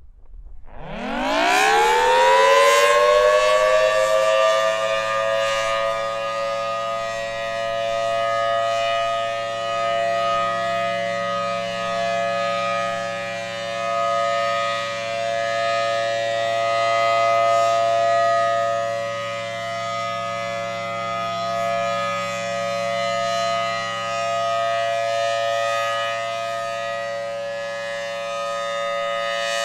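Federal Signal Thunderbolt civil defense siren winding up from a standstill, its pitch rising over about three seconds before settling into a steady, loud tone. The tone holds, its level swelling and fading slowly.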